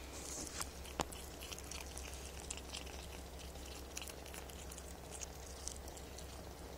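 A kitten chewing a moth: faint, scattered crunching clicks, with one sharper click about a second in.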